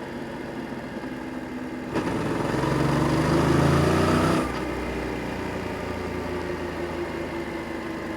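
Yamaha Tracer 7 GT's 689 cc parallel-twin engine through its stock exhaust: steady running, then about two seconds in the throttle opens and the revs climb for a couple of seconds before the throttle shuts suddenly and the engine settles back to a steady, lower note.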